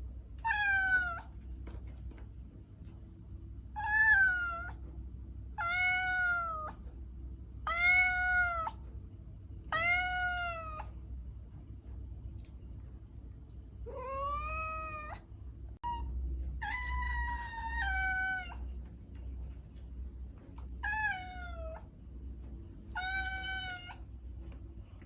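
A domestic cat meowing over and over: about ten separate meows, each about a second long and roughly two seconds apart, some bending up and then down in pitch. A steady low hum runs underneath.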